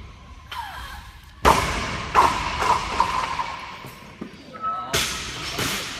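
Loaded barbell with bumper plates lifted in a clean: a sudden clatter of bar and plates about a second and a half in, a few more rattles just after, and another sharp knock about five seconds in.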